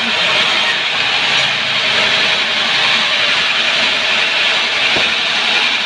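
Sawmill saw cutting through a sengon log, a steady, loud sawing noise that holds without a break.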